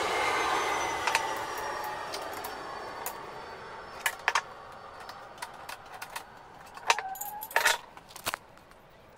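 Steel spanners clinking and clanking as they are picked up and set down on a wooden workbench: a few sharp metal knocks in the second half. Before them, a fading whir falls in pitch over the first couple of seconds.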